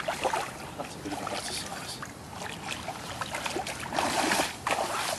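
Lake water sloshing and splashing around a landing net holding a pike as it is drawn through the shallows and lifted out onto the bank, in irregular bursts with the loudest splashing about four seconds in.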